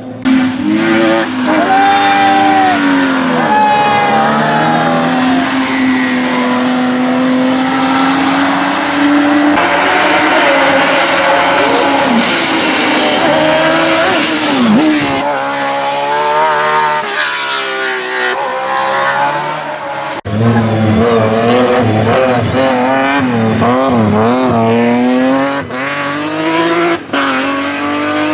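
Hillclimb racing cars accelerating hard up a wet mountain road, their engines revving high and dropping at each gear change. The sound changes abruptly twice as the footage cuts from one car to another.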